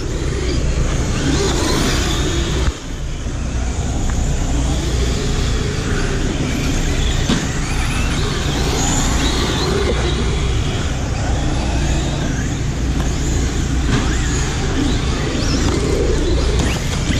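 Radio-controlled cars running laps on a dirt oval track: their motors and tyres on the dirt make a steady noise over a heavy low rumble, with the pitch now and then rising and falling as cars pass.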